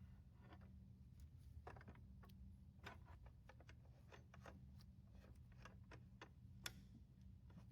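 Near silence: faint scattered clicks and light taps over a low steady hum, with one sharper click near the end.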